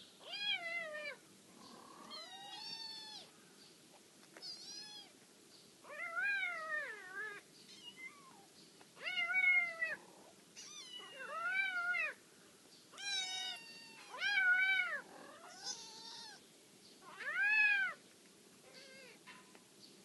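Kittens meowing: a dozen or so short mewing calls, each rising and then falling in pitch, coming at irregular intervals, some higher-pitched than others.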